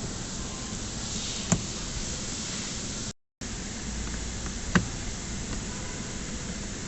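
Two sharp clicks, about a second and a half in and near five seconds, from tool work on the door's bolts, over a steady hiss, with a brief cut to silence a little after three seconds.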